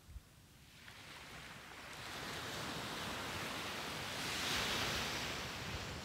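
A small sea wave breaking and washing up a sandy beach: a hiss of surf that builds from about a second in, peaks near the end, then starts to ease.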